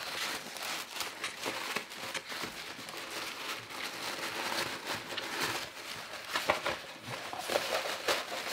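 Tissue paper rustling and crinkling as hands unwrap a rolled paper art print, with irregular small crackles throughout.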